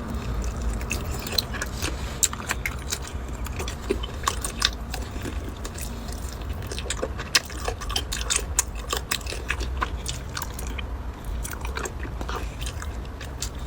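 Close-up eating sounds of a person biting and chewing chicken feet: many small, irregular crunchy clicks and smacks throughout.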